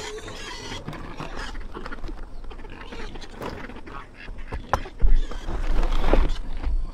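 Ducks quacking, with scattered knocks and clicks of a wicker basket and footsteps on wooden deck boards. From about five seconds in, a loud low rumble on the microphone takes over.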